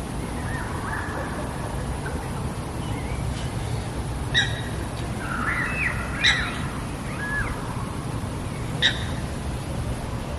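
Birds calling: three short, sharp calls about two seconds apart, with quieter chirping in between, over a steady low outdoor rumble.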